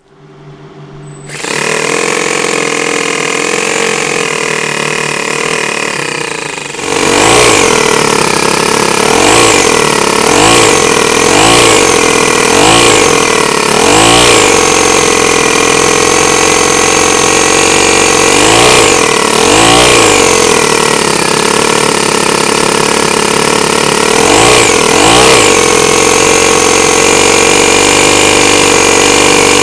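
Miniature two-cylinder four-stroke model engine starts up and runs, then about seven seconds in gets louder and is revved up and down again and again. A high whistle from its belt-driven centrifugal supercharger spinning at tens of thousands of rpm rises and falls with each blip.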